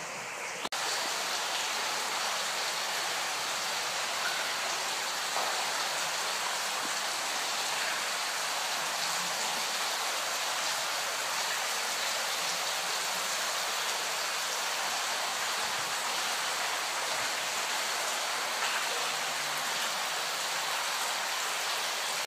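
Artificial rain from an overhead rig falling onto a flooded floor: a steady splashing of many drops on standing water, which starts abruptly about a second in.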